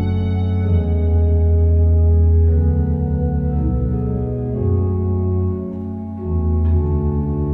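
Organ playing slow held chords over a deep bass, the chords changing every second or two.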